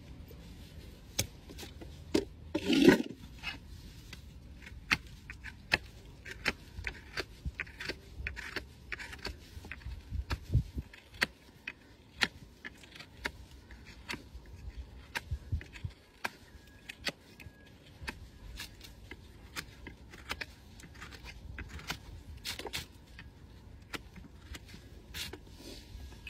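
Farrier's hand tools paring and scraping the sole and frog of a Shire horse's rear hoof: many short, sharp scrapes and clicks, with one louder, longer scrape about three seconds in.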